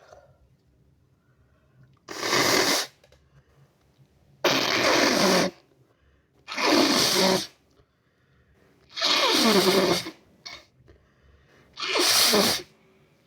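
Five hard nose blows, each about a second long and a couple of seconds apart.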